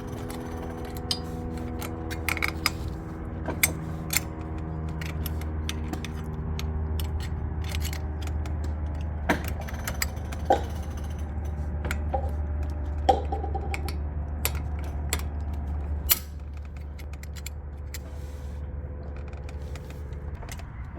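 Metal clicks, clinks and scrapes of a brake caliper's spring clip and caliper being handled as the clip is forced into place by hand. A steady low hum runs underneath and stops about two-thirds of the way through.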